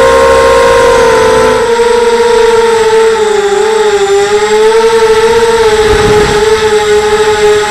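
Mini FPV quadcopter's electric motors and propellers whining loudly, heard from its onboard camera; the pitch holds fairly steady with small dips and rises as the throttle is worked in flight.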